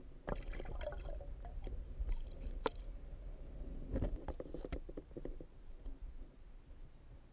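Muffled underwater sound heard through a submerged camera: a low, steady rumble of water with scattered clicks and knocks.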